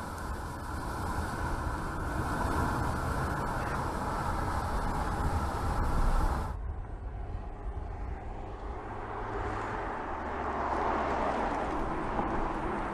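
Audi TT engine running as the car drives, with steady engine and road noise; about six and a half seconds in the sound changes abruptly as one recording is cut to another.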